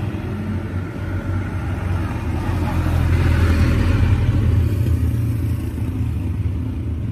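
Motor vehicle engine rumble that swells for a few seconds and then eases off, as a vehicle passes on the road.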